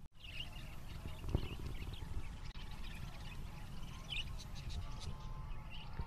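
A crowd of caged budgerigars chirping and chattering, many short, high calls overlapping, over a low rumble with a single thump about a second and a half in.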